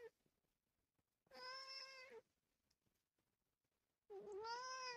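Domestic cat meowing twice, faintly, about two and a half seconds apart. Each meow lasts just under a second, and the second rises and then falls in pitch.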